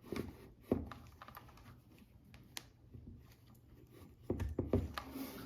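Small clicks and knocks of wires and crimped connectors being handled and hooked up to battery terminals, with a sharp click about a second in and a cluster of taps near the end.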